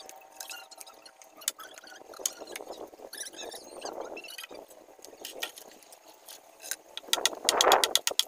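Faint scraping and crunching on gravelly soil, then about seven seconds in a small engine starts up loud and close, running with a rapid, even putter.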